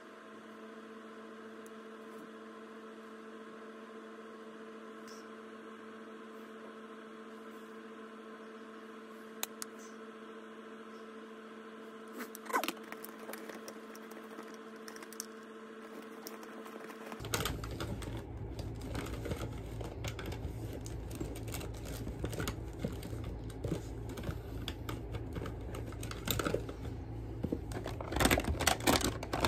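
A steady low hum, then from about halfway a close, noisy rubbing and many small clicks of handling right at the microphone, with a few louder taps near the end.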